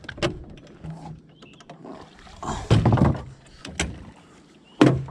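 Knocks and clunks of fishing gear being handled in an aluminium boat: several sharp knocks and a louder clatter in the middle.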